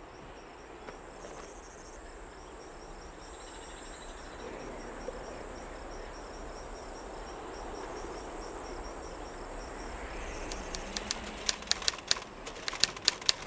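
Crickets chirping in an even, steady series over a soft background hiss. About ten seconds in, typewriter keys start clacking and come faster and louder toward the end.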